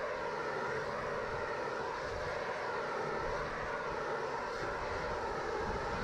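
Propane shrink-wrap heat gun running steadily with a constant roar as its flame heats the plastic boat cover.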